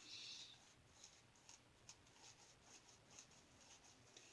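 Faint scraping of a safety razor cutting through lathered stubble: a short stroke at the start, then a few light, brief scrapes.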